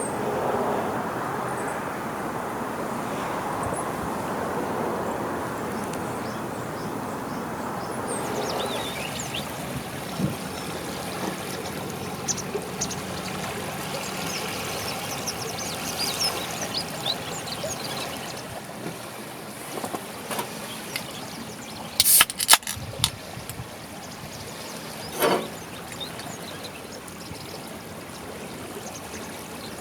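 Lake water lapping and trickling at the shoreline under a steady wash of wind, with scattered small clicks and a few sharp knocks about two-thirds of the way through.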